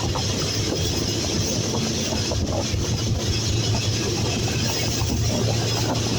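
Long freight train running past, a steady rumble with a low hum that does not let up.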